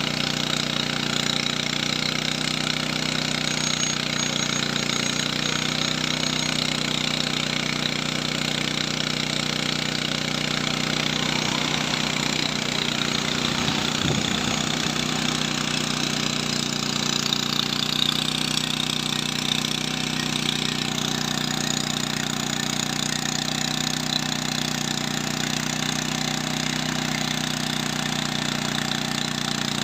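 Agricultural crop-spraying drone's rotors running steadily in flight, a continuous buzzing hum with a high whine over it; the pitch sweeps briefly about halfway through.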